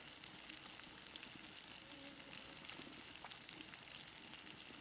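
Northern pike fillets frying in oil in a pan: a steady, faint sizzle with scattered small pops.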